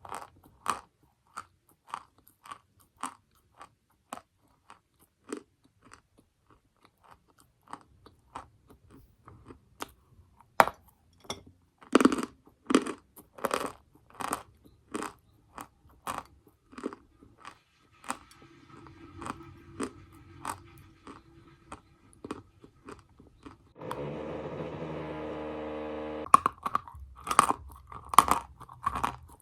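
Edible chalk or clay being bitten and chewed close to the microphone: crisp, dry crunches coming about once a second, with quieter crumbly chewing between them. Past the middle, a steady mechanical whine is heard for about two seconds.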